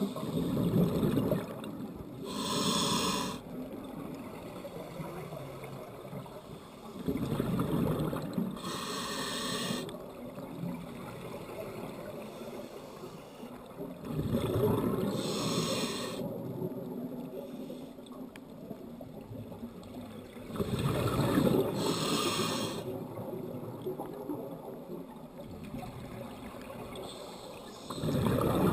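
Scuba diver breathing through a regulator underwater: a hissing inhale followed by a short, louder gurgling burst of exhaled bubbles, repeating about every six to seven seconds, four times over.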